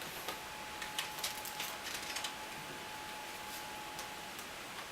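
Light, scattered clicks and ticks of small parts being handled inside an opened laptop, clustered about one to two seconds in, over a faint steady high tone.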